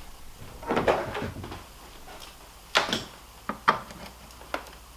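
Cable handling and a power cord's plug being pushed into the socket on a plasma TV's power supply board: a rustling stretch about a second in, then several sharp plastic clicks.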